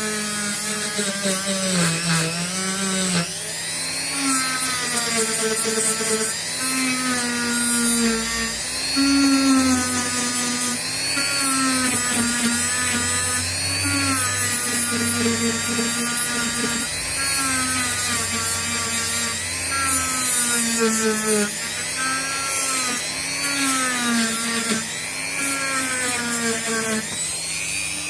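Rotary tool running a steel wire wheel against the steel tops of 18650 cells, wire scratching on metal to strip rust and oxide and expose fresh contact for soldering. The motor runs at moderate speed, its whine dipping and recovering about once a second as the wheel is pressed onto each cell in turn.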